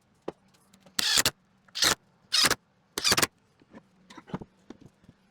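Four short, loud bursts from a power tool, each about a third of a second long, fastening wooden frame pieces, followed by lighter knocks and clicks of wood being handled.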